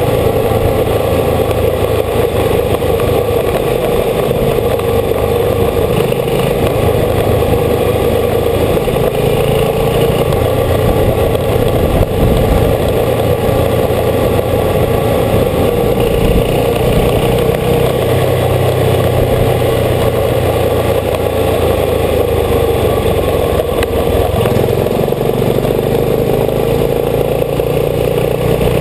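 Old motorcycle's engine running as it is ridden along, with a steady rushing noise over it; the low engine note shifts a few times.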